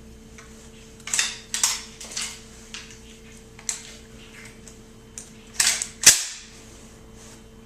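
Sharp mechanical clicks and clacks from a Remington 7600 pump-action rifle being handled, about seven in all, irregularly spaced, with the loudest two near the end.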